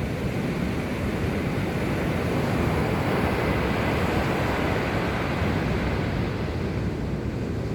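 Mediterranean surf washing onto the shore, a steady rush that swells in the middle and eases toward the end.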